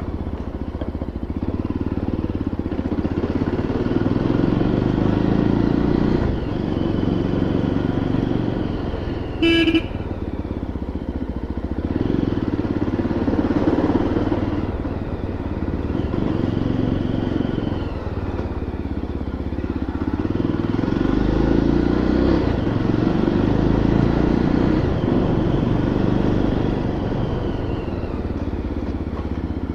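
Yezdi Roadster's 334 cc single-cylinder engine running as the bike is ridden at low speed, its note rising and falling with the throttle. A short horn toot sounds about a third of the way in.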